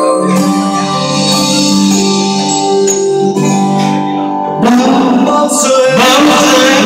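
Karaoke backing track with held electronic organ and keyboard chords. About two-thirds of the way in, a man starts singing a Vietnamese ballad into a karaoke microphone over it, and the sound becomes louder and fuller.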